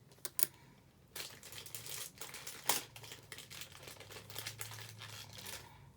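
Packaging crinkling and rustling as it is handled, with a few sharp clicks and taps, the clearest a little under three seconds in.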